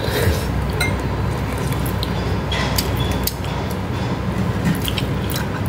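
A steady low rumble of background noise, with a few light clicks and clinks of chopsticks on a dish as a home-cooked dish is being tasted.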